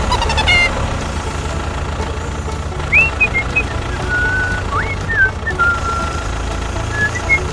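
A small engine running steadily with a low, even putter, while short high whistling chirps come and go over it.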